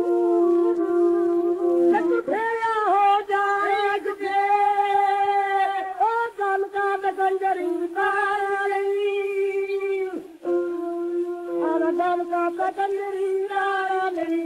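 Old Punjabi folk song playing from a 78 rpm shellac record: a man's high voice sings a wavering, ornamented melodic line. A steady held note sounds beneath and between his phrases. The voice drops out for about a second near the middle, leaving only the held note.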